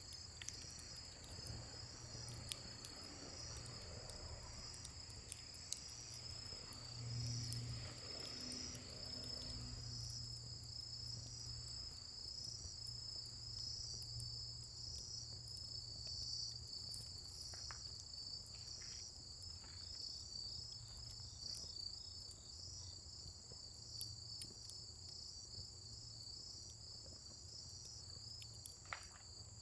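Crickets chirping in a steady, rapidly pulsing chorus, with a few faint pops and crackles from a wood fire.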